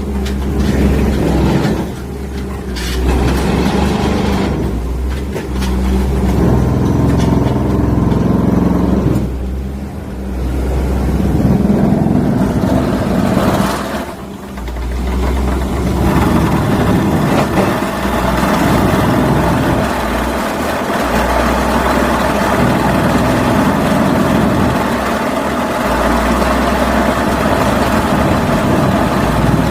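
Rock drilling rig at work: its heavy diesel engine runs steadily, with the load and pitch shifting and the level dipping briefly a few times.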